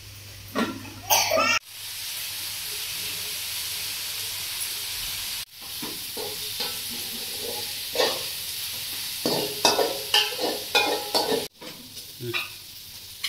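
Sliced onions sizzling in hot oil in an aluminium kadai, a metal spatula scraping and clicking against the pan as they are stirred. The sizzling starts abruptly a moment in and drops to a quieter stretch near the end.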